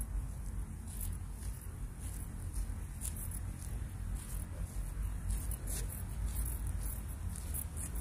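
Outdoor walking ambience: a fluctuating low rumble of wind and handling on the microphone, under a steady high-pitched insect trill, with scattered faint ticks.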